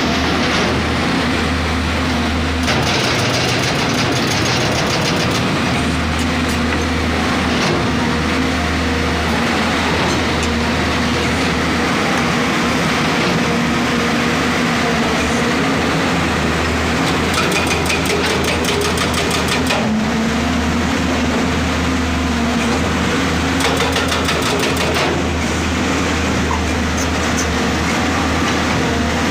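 Excavator's diesel engine running steadily under work, a constant low hum, with spells of rapid metallic rattling a few seconds in, around the middle and near the end.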